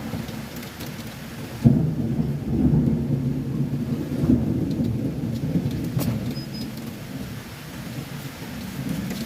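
Heavy rain falling steadily. About two seconds in a sudden crack of thunder breaks out into a low rolling rumble that lasts several seconds and then fades.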